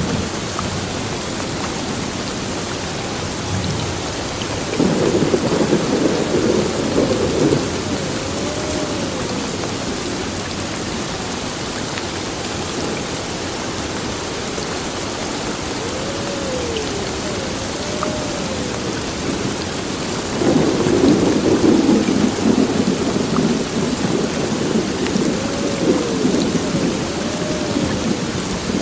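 Heavy rain falling steadily, with two long rolls of thunder: one about five seconds in, and a longer one starting about twenty seconds in.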